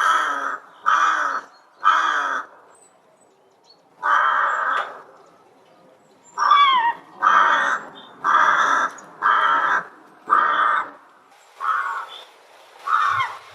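Rook cawing: a series of about a dozen harsh caws, each about half a second long, coming about one a second with a couple of short pauses.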